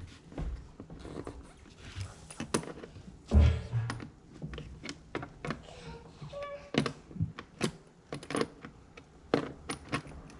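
Scattered clicks and knocks of hands working on hardware as a boat battery is strapped down, with one heavier thunk about three and a half seconds in.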